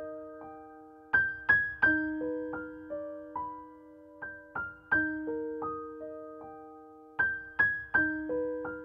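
Background music: a gentle piano melody of single notes struck and left to ring out, with the same short phrase coming back again and again.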